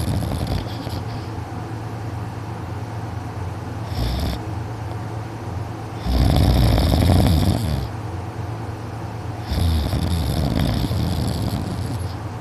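A teenage boy snoring heavily in his sleep, really loud: a long snore about six seconds in and another about three and a half seconds later, with shorter snores at the start and at about four seconds.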